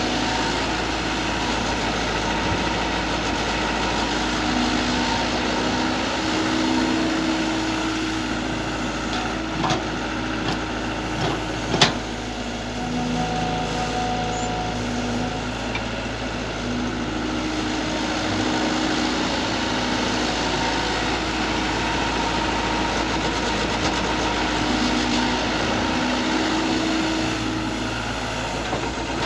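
IHI IS120GX long-arm excavator's diesel engine running steadily under work, with a droning tone that comes and goes. A few sharp knocks fall between about nine and twelve seconds in, the loudest near twelve seconds.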